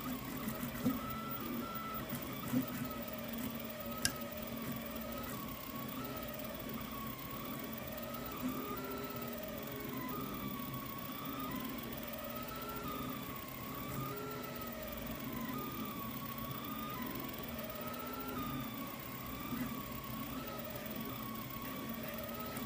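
Delta 3D printer printing, its stepper motors whining in a tone that rises and falls again and again as the print head sweeps back and forth, over a steady hum. A few sharp clicks come in the first four seconds.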